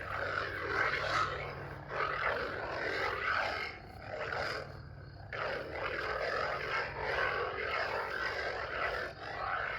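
Theory Sabers Soldier lightsaber's sound font: a steady low hum with swells of swing noise that rise and fall as the saber is swung, dipping briefly around the middle.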